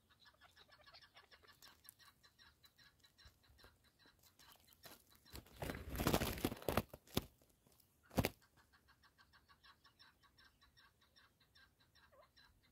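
Chukar partridge calling in a fast, even series of short notes. About five and a half seconds in, a chukar beats its wings hard for nearly two seconds, the loudest sound, followed by one sharp crack about a second later.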